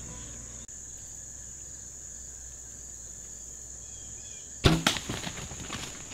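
Bow shot: a sharp thwack of the string and the arrow striking home about two-thirds of the way through, then deer crashing off through dry leaves and brush. A steady high chorus of insects runs underneath.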